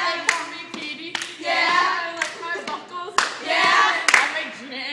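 Girls singing with sharp hand claps about once a second, keeping a beat.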